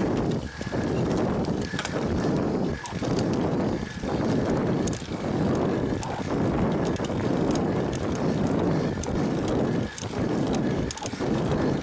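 A cyclist breathing hard and rhythmically while climbing a steep hill, about one breath a second.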